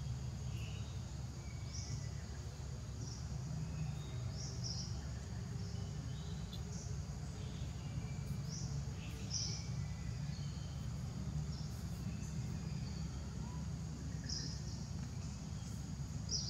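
Outdoor woodland ambience: a steady high insect drone with short high chirps every second or two, over a steady low rumble.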